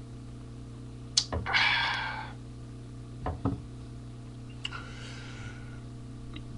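Drinking sounds from a can of malt liquor. A sharp click is followed by about a second of hissing, then a couple of small knocks, then a softer click and hiss. A steady low hum runs underneath.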